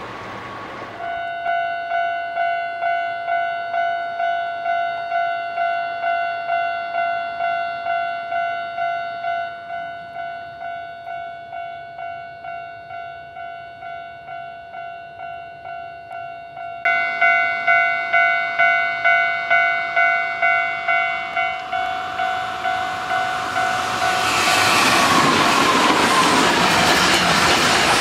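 Japanese level-crossing warning bell ringing in quick repeated strikes, about two a second, louder from partway through. Near the end a Hankyu 5300 series electric train passes at speed with a loud rush of wheel and rail noise as the bell stops.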